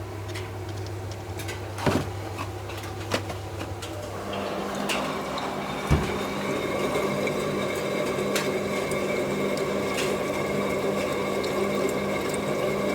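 Hotpoint washing machine and tumble dryer running, with a steady hum and a few sharp clicks. About four seconds in, a louder, steadier whir with a higher hum starts up, as a machine's motor or water flow kicks in.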